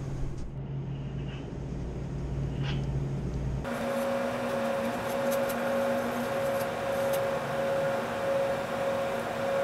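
Refrigeration condensing unit running up close: a steady fan rush with a steady hum in it, which comes in abruptly about four seconds in over a quieter low hum. A few faint clicks of small metal valve parts being handled.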